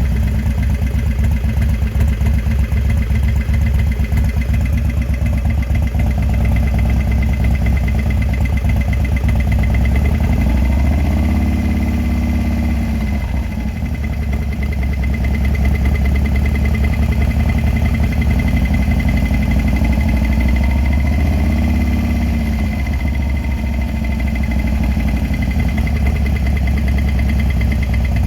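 Engine idling with a steady run of knocks in its low rumble, the knocking noise the owner is questioning. It is revved gently twice, the pitch rising and falling back, and a thin high whine runs steadily over it.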